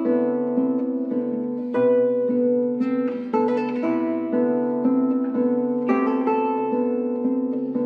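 Solo classical guitar, nylon strings fingerpicked: a flowing arpeggio pattern over sustained bass notes, with fresh chords plucked a few times, about two, three and six seconds in.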